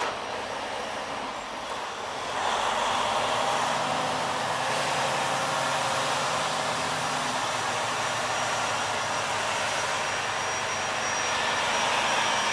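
Semi truck's diesel engine and road noise heard from inside the cab as the truck creeps through the lot, a steady rushing that gets louder about two seconds in.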